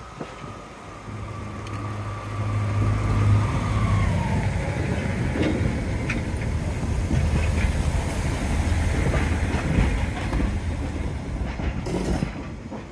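Class 142 Pacer diesel multiple unit passing close by, its underfloor diesel engines running with a low hum that grows louder about two seconds in. A high whine slides down and fades in the first few seconds, and the wheels click over the rail joints as the coaches go by. It quietens near the end as the unit pulls away.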